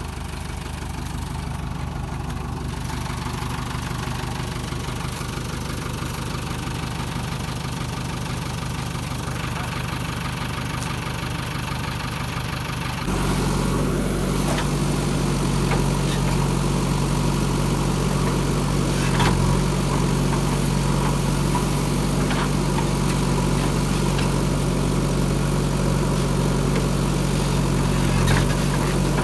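Diesel engine of a JCB 3DX backhoe loader running steadily, getting abruptly louder about thirteen seconds in.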